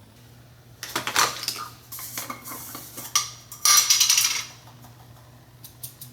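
Small hard objects clattering and clinking as they are handled and rummaged through, in a run of bursts starting about a second in and a louder stretch around the middle, then a few light clicks near the end. A low steady hum runs underneath.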